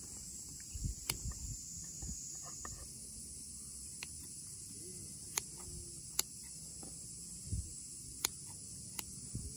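Kitchen scissors snipping through the sinew of raw lamb chops: about half a dozen sharp clicks spaced a second or more apart, with a few soft knocks of the meat against a wooden cutting board, over a steady high hiss.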